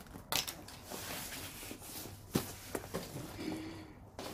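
Cardboard shipping box being handled and turned over: scraping and rubbing on its sides, with a few sharp knocks.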